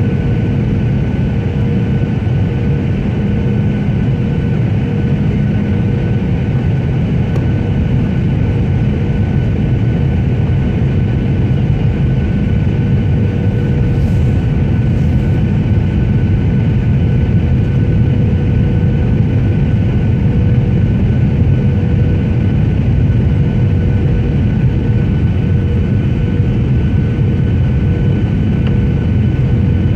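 Steady engine and airflow noise of an airliner heard from inside the cabin: a dense low rumble with a constant hum and a fainter higher whine running through it.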